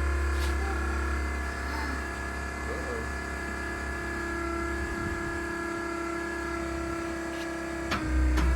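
Golf cart motor running steadily under load as it pulls a non-running car into a trailer: a steady hum of constant pitch over a low rumble, growing louder near the end.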